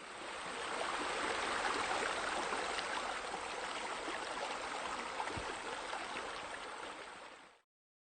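Steady rush of flowing, splashing water, like a pool water feature, which stops abruptly near the end.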